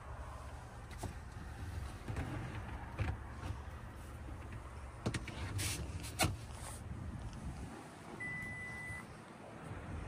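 Cabin noise of a 2024 Toyota RAV4 Limited on the move: a steady low road rumble with a few scattered knocks from bumps in the road. Near the end there is one short electronic beep.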